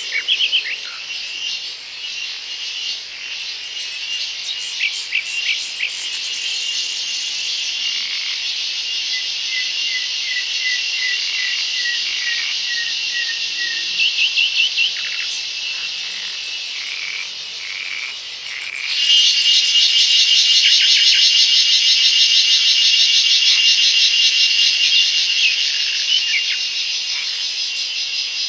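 Dense forest insect chorus, a steady high-pitched shrilling that turns louder and rapidly pulsing about two-thirds of the way through. In the middle a bird repeats a short note about ten times in quick succession.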